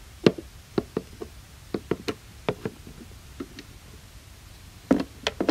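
Irregular light knocks and taps of plastic toy figures being handled and moved across a hard surface. One louder knock comes just after the start and a cluster of louder knocks comes near the end.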